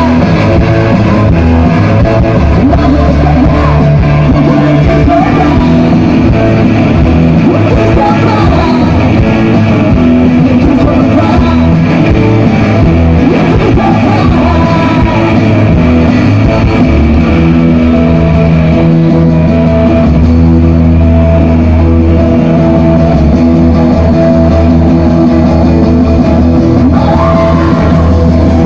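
Garage-punk band playing live and loud: distorted electric guitars, drum kit and a singer.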